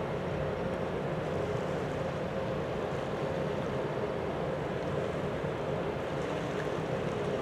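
Container ship's engine and onboard machinery droning steadily as it moves slowly past, with a steady hum over a rumbling noise and wind on the microphone.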